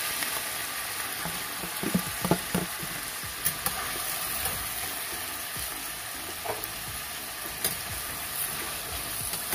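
Freshly added diced potatoes sizzling in hot oil in a stainless steel skillet, a steady hiss, with a few knocks and scrapes of a utensil stirring them against the pan.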